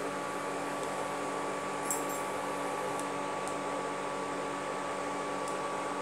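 Induction cooktop running: a steady whirr of its cooling fan with a steady electrical whine on top. A few faint light clicks of the spatula stirring in the pan, the first about two seconds in.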